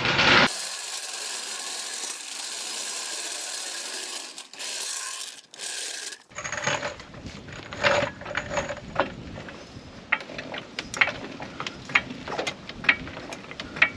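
A steady hiss for about six seconds that cuts off abruptly, then a run of irregular sharp clicks and knocks, like hand tools working on the truck.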